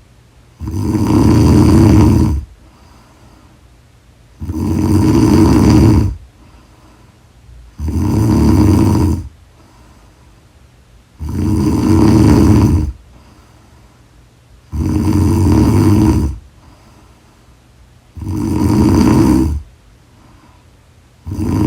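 Loud, regular snoring: one snore roughly every three and a half seconds, each lasting about one and a half to two seconds, with quiet breathing gaps between. Six full snores, and a seventh starts just before the end.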